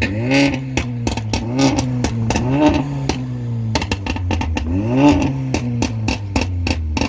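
A car engine held at a steady low note and blipped up and back down about four times, with many sharp clicks and cracks throughout.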